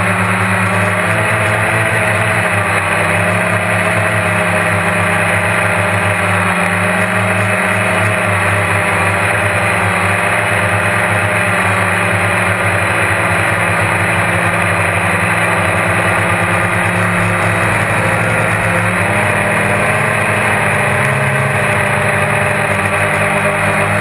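GAUI QuadX quadcopter's electric motors and propellers buzzing steadily in flight, close to the on-board camera, with a slight waver in pitch as the throttle shifts.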